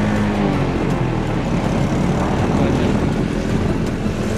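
Motorcycle engine running steadily at road speed, mixed with the rush of wind over the microphone.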